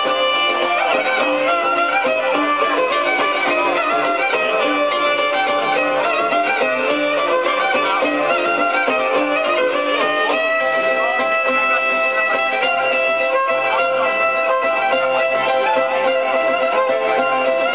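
Live Greek folk dance music led by a violin, with plucked-string accompaniment, played through a PA system. About ten seconds in, the violin line moves to longer held notes.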